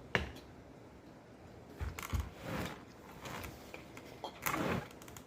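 Close-miked eating sounds: chewing and wet mouth noises from a mouthful of seafood boil, with a sharp click at the very start and two louder bouts of chewing about two seconds in and near the end.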